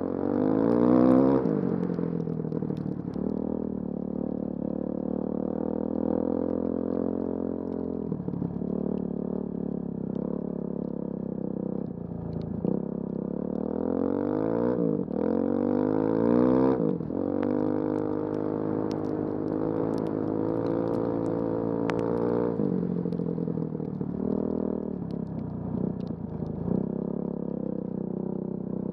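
Motorbike engine running under way, revving up and down as the throttle is worked. The pitch climbs sharply about a second in and several times midway through, with steadier running between.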